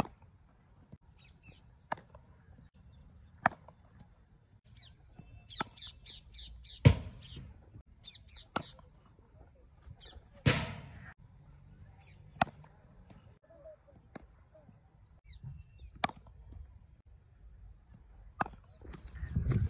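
Cricket bat striking the ball in net practice: a series of about seven sharp cracks spread over the stretch, the loudest about seven seconds in. Crows cawing in the background between the hits.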